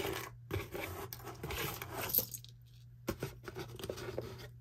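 Loose costume jewelry clinking, rattling and scraping as it is dumped out of a cardboard box and spread by hand across a tabletop. A busy clatter for the first two seconds gives way to a few separate clinks.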